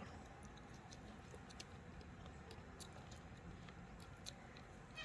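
Near silence with a few faint, scattered clicks and taps of small plastic kit parts being handled.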